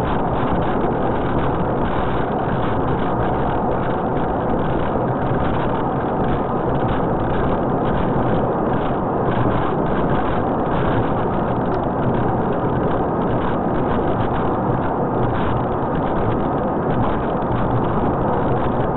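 Steady road noise of a car driving at highway speed, tyre, wind and engine noise blended into an even rush, heard inside the car's cabin.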